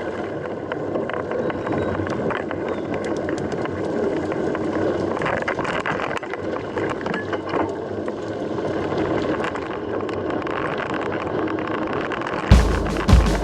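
Mountain bike riding noise: a steady rumble of tyres and wind with scattered ticks and rattles. Loud background music with a heavy bass comes in near the end.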